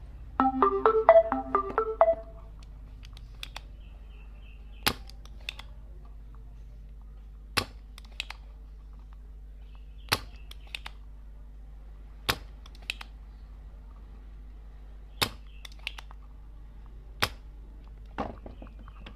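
A short run of electronic tones, then a spring-loaded desoldering pump snapping, with sharp single clicks every one to three seconds as it is fired and cocked again while solder is sucked off a speaker switch's pins. A steady low hum runs underneath.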